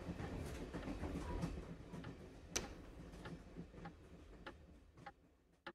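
Steam engine running and pulling away, a low rumble fading out with scattered light clicks, the sharpest about two and a half seconds in.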